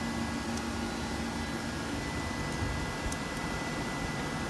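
Steady whirring hiss of running equipment cooling fans, with a few faint light clicks of a screwdriver driving a screw into a sheet-metal battery-module cover.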